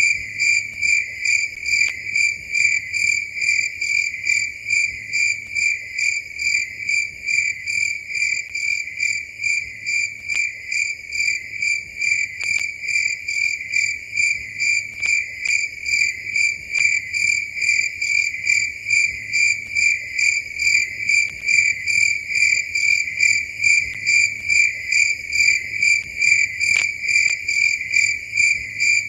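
Cricket chirping steadily in an even rhythm, about two to three chirps a second, all on one high pitch.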